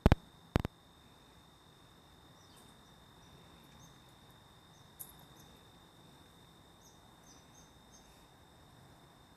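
Two sharp clicks about half a second apart, then faint outdoor ambience: a steady high-pitched insect drone with a few brief bird chirps.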